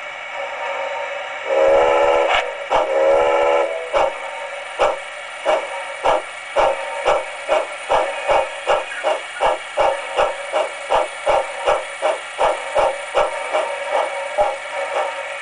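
Recorded steam-locomotive sound sample played through a tiny 27 mm speaker mounted reversed in an enclosure, with almost no bass. Two whistle blasts about two seconds in are followed by exhaust chuffs that quicken as the locomotive gets under way, over a steady hiss.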